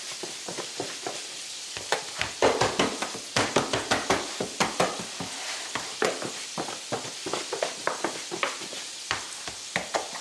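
Chicken pieces thudding and rattling inside a lidded plastic bowl as it is shaken to coat them, in a dense run starting about two seconds in. Beneath it runs the steady sizzle of chicken frying in shortening in a cast iron skillet.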